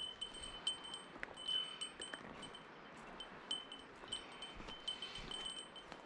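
A small metal bell jingling with each step of a walking hiker, a bear bell of the kind carried on Hokkaido trails, ringing in short irregular chimes about twice a second.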